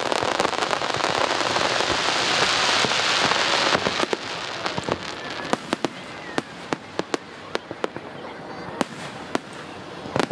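Aerial fireworks: a dense crackling for about the first four seconds that stops suddenly, then a string of separate sharp bangs from shell bursts.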